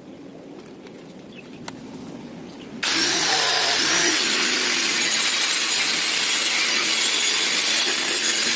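Electric angle grinder with an abrasive disc grinding a stainless-steel exhaust pipe, coming in abruptly about three seconds in and then running loud and steady, with a high whine that wavers up and down.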